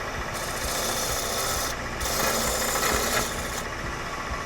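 Wood lathe running with a steady hum while a turning tool cuts the spinning lignum vitae bowl blank: two scraping strokes, each about a second and a half long.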